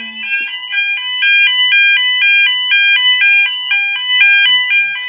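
Fire alarm sounder giving an alternating two-tone alarm, switching rapidly and evenly between a lower and a higher pitch.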